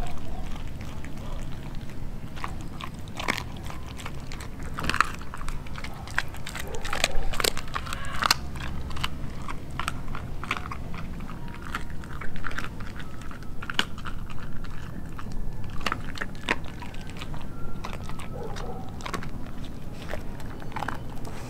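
A Doberman chewing raw food, with irregular crunching bites all the way through.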